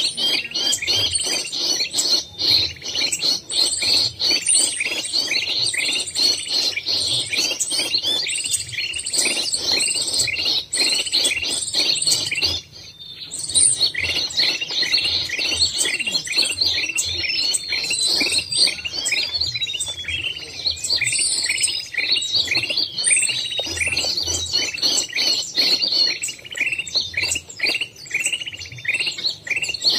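A busy chorus of small songbirds chirping non-stop: many short, high calls each second overlapping one another, with a brief lull about 13 seconds in.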